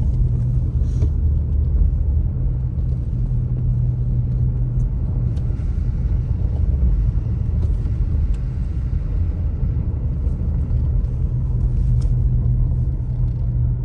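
Steady low rumble inside a car's cabin as it drives slowly over a snow-covered road: engine and tyre drone, with a few faint ticks.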